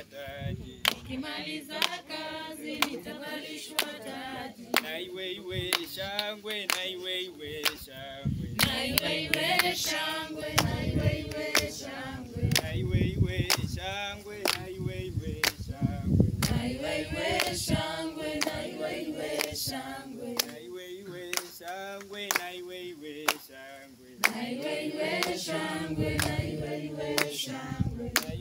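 A group of people singing unaccompanied, with hand claps keeping time. The singing pauses briefly about 24 seconds in, then resumes.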